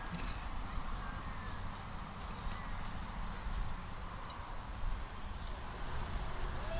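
Outdoor ambience: a steady high-pitched insect drone and a low rumble, with a few faint bird chirps.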